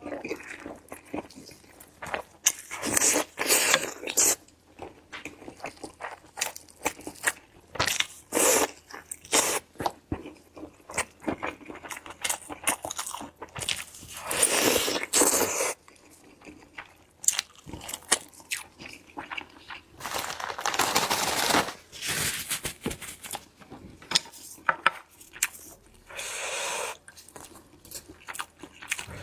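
Close-miked eating: crunchy bites and chewing, with many sharp crackles throughout and a few longer noisy stretches of one to two seconds, around the middle and later on.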